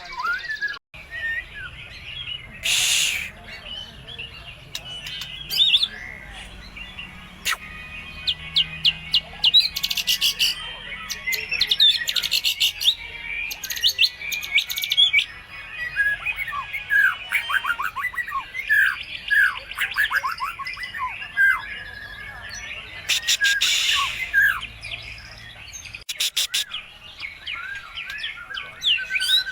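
White-rumped shama singing continuously and vigorously, a varied song of rapid trills, quick downward-sweeping whistles and harsh chattering notes, full of phrases copied from other birds.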